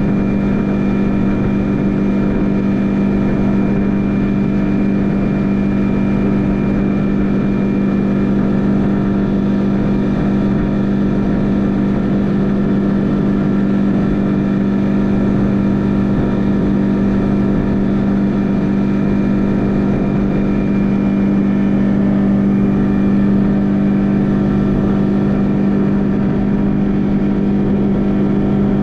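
Outboard motor of a Crestliner 1650 Fish Hawk running at a steady throttle, its engine tone holding one constant pitch.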